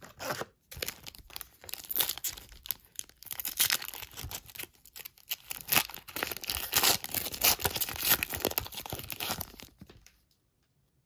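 Trading-card pack wrapper being torn open and crinkled by hand: a dense run of crackling and rustling from about a second in that stops about a second before the end.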